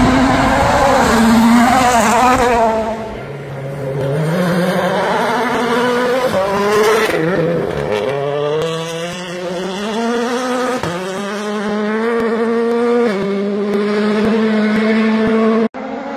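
World Rally Car turbocharged four-cylinder engines at full throttle on a gravel stage, one car after another, the engine note climbing and stepping through quick gear changes. A sudden cut shortly before the end switches to another car.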